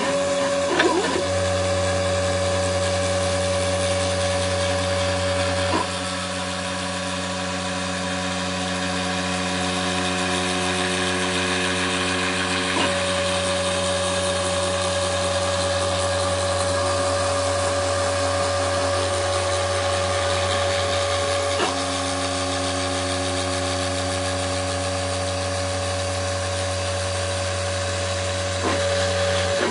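Mini CNC router milling a printed circuit board: the spindle runs steadily with a hiss from the bit cutting copper, over a set of steady motor tones that change abruptly a few times as the stepper-driven axes switch moves.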